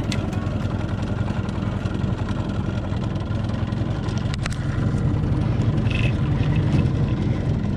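Boat's outboard motor running steadily with the boat under way.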